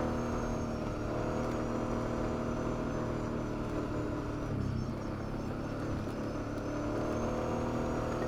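V-twin ATV engine running at low, steady revs while crawling up a trail, its pitch dipping briefly about halfway through and then picking back up.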